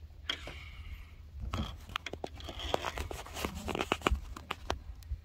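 Irregular clicks, knocks and crinkling scrapes of things being handled and moved, thickest from about a second and a half in, over a steady low rumble.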